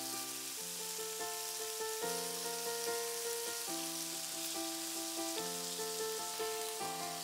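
Thin beef slices sizzling in oil in a frying pan on high heat, under soft background music of slow sustained chords that change about every one and a half seconds.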